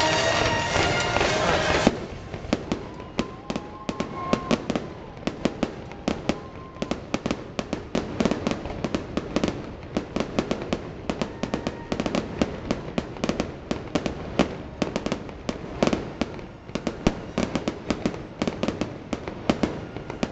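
Music plays for about the first two seconds, then cuts off. A fireworks display follows: a rapid, uneven run of sharp bangs and cracks, several a second.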